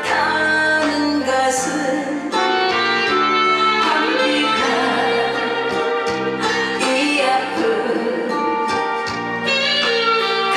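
A woman singing a pop song over loud instrumental accompaniment, amplified through a concert sound system.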